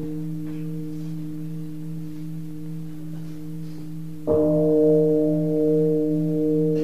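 Large Zen temple bowl bell (keisu) ringing on from an earlier stroke, its deep tones slowly fading, then struck again about four seconds in. After the new stroke its tones hum with a slow, wavering pulse.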